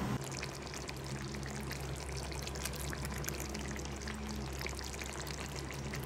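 Chicken curry with potatoes bubbling and spattering as it simmers in a kadai: many small pops over a steady low hum.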